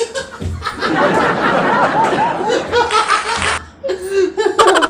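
Laughter, a dense run of many overlapping laughs lasting about three seconds, which stops abruptly about three and a half seconds in.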